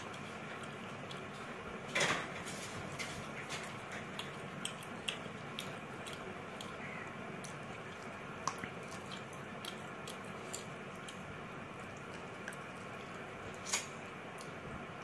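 Close-up eating sounds of rice and mutton curry eaten by hand: chewing with scattered short wet clicks and smacks over a steady hiss, two of them louder, about two seconds in and near the end.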